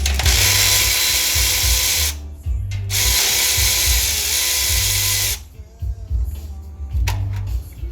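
A power tool running in two bursts of about two and a half seconds each, its motor pitch dipping briefly near the end of the second, over background music with a steady bass beat.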